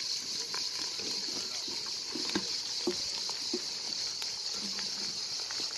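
Sliced eggplant and zucchini tipped from a stainless steel colander into a hot pot. The pieces land with scattered soft thuds and clicks over a steady high hiss.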